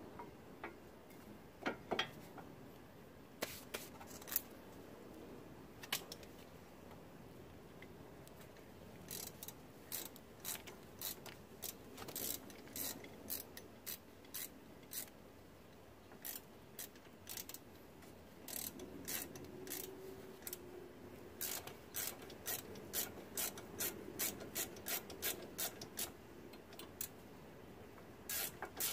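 Hand ratchet wrench clicking in short runs as the brake caliper bolts are driven in, ending in a steady series of clicks about two or three a second.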